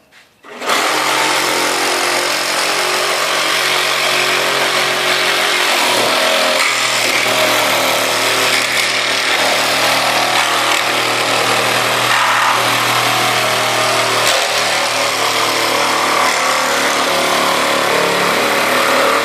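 Ridgid Gen5x cordless reciprocating saw, with its permanent-magnet motor and a Diablo blade, running flat out and cutting through a 2x4 with large nails embedded in it. The saw starts about a second in and runs steadily and loudly, with brief dips in speed near 6 and 14 seconds as the blade meets nails or knots.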